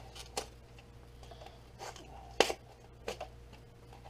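Light handling of a small plastic packet of mount parts: a few short, sharp clicks and crinkles as it is turned over and opened, the loudest about two and a half seconds in, over a faint steady hum.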